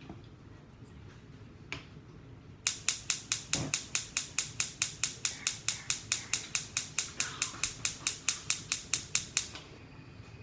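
A rapid, very even series of sharp mechanical clicks, about five a second, that starts a little under three seconds in and stops about a second before the end.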